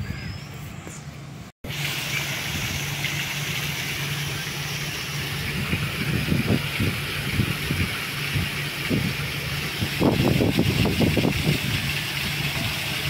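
Small waterfalls splashing onto rock and into a pool: a steady rushing hiss, over a steady low hum, with wind buffeting the microphone in gusts, most strongly near the end.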